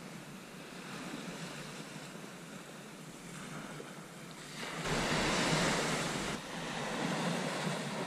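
Sea swell washing onto a beach, a steady rush of surf with one louder surge about five seconds in.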